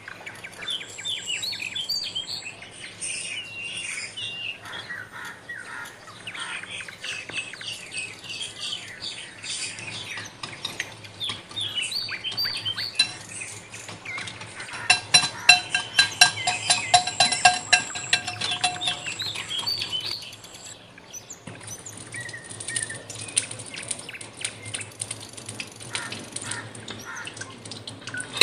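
Small birds chirp in the background. About halfway through, a utensil clinks rapidly against a glass bowl for about five seconds as eggs and chopped vegetables are beaten. In the last few seconds comes a steady hiss and crackle of ghee sizzling as it melts in a hot non-stick pan.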